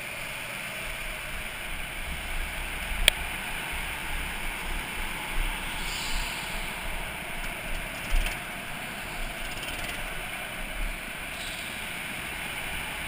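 Go-kart pulling out of the pit lane and driving onto the track, heard from a camera worn by the driver: a steady hiss with low rumbling, and one sharp click about three seconds in.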